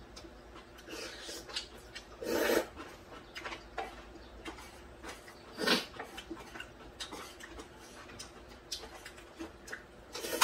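Close-up eating sounds: noodles slurped from cold soy-milk broth and chewed, with small clicks of chopsticks against the bowls. Two louder slurps come about two and a half and six seconds in.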